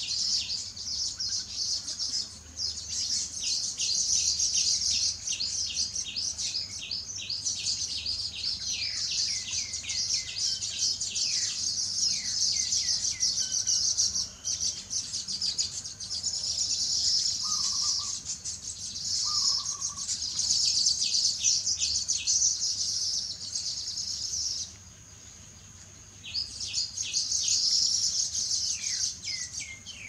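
Small birds chirping and twittering rapidly and continuously in high, dense runs of notes. The chirping stops for about two seconds near the end, then starts again. Twice around the middle, a short lower call sounds.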